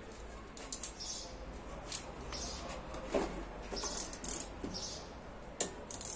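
Scattered light clicks and knocks from hands working on the stripped front of a front-loading washing machine, with one sharper click near the end.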